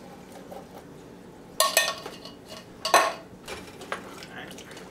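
Two loud clanks of utensils against a stainless steel pot, about a second and a half apart, with quiet stirring of canned black beans into chili between them.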